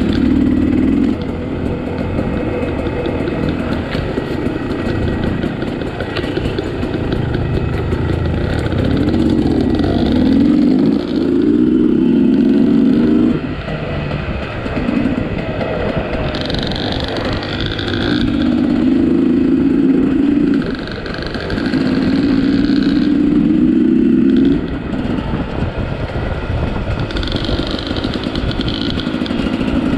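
Sherco 250 SE Factory two-stroke dirt bike engine under way on a trail, repeatedly opened up for one to three seconds at a time, then backed off.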